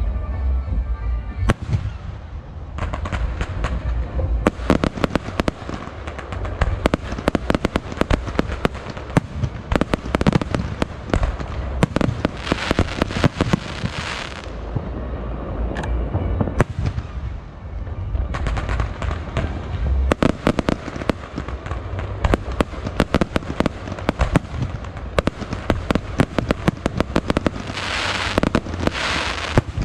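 Fireworks show: ground-fired multi-shot cakes sending fan-shaped salvos of comets, and aerial shells bursting, giving a fast, irregular run of launch thumps, bangs and cracks over a steady low rumble. Denser, hissing crackle comes about twelve seconds in and again near the end.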